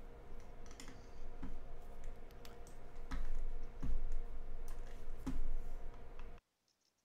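Scattered computer mouse and keyboard clicks picked up by a desk microphone, irregularly spaced, over a steady low electrical hum. All sound cuts off abruptly near the end, as when a microphone gate closes.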